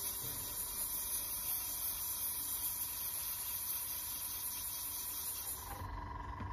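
Airbrush spraying paint: a steady high hiss of air that cuts off about a second before the end, over a low steady hum.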